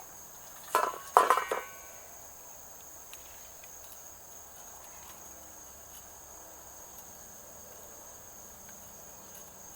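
Crickets keeping up a steady high trill, with a short metallic rattle and clatter about a second in.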